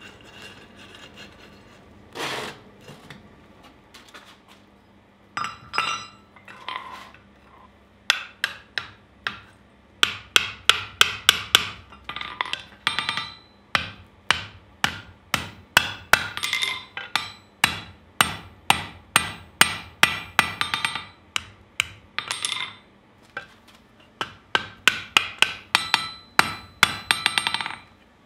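Blacksmith's hammer striking red-hot angle iron on a steel anvil: a few separate clanks at first, then, from about eight seconds in, quick ringing blows at about three to four a second, in runs broken by short pauses.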